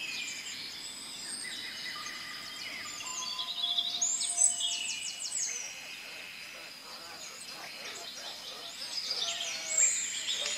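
A dense chorus of birds chirping, whistling and trilling at once, with overlapping sliding whistles and rapid trills, like jungle ambience. It is loudest about four to five seconds in and again near the end.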